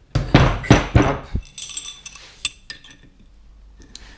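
Metal suspension parts and hand tools being handled on a wooden table: several heavy knocks in the first second and a half, then lighter metallic clinks with a brief ringing, then a few small clicks.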